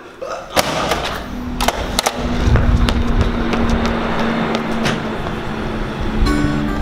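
Clacks and knocks as a glass door's metal push bar is hit and the door swings open, followed by loud outdoor noise with wind rumbling on the microphone and a steady low hum.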